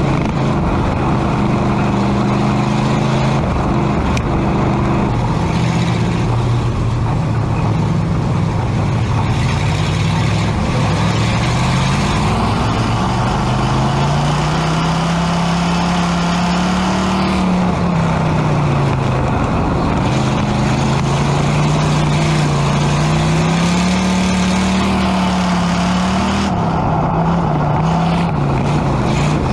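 Pure stock dirt-track race car's engine heard from inside the cockpit, running loud. The engine note holds steady at first, then climbs and falls twice as the car speeds up and slows.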